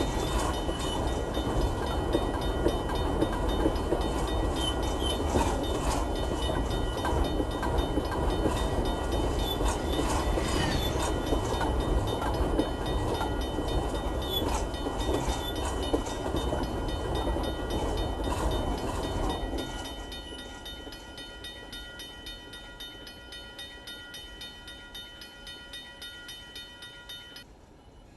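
Manifest freight train rolling past at speed, its wheels clattering over the rail joints. About two-thirds of the way through the loud rolling stops and gives way to a quieter, even clicking that fades out near the end as the train moves away.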